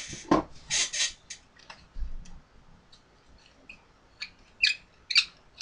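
A mostly quiet room with a few scattered knocks and rustles, then two short high squeaks, each falling in pitch, about four and a half and five seconds in.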